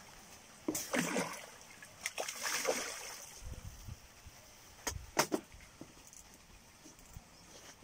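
Hooked northern pike thrashing and splashing at the water's surface close to the bank, in several short bursts, with a couple of sharp knocks about five seconds in.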